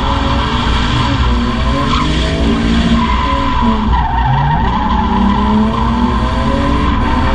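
BMW E36 Compact's converted 2.5-litre M52 straight-six revving up and down under throttle while drifting, with the rear tyres squealing and skidding as they slide sideways on the tarmac.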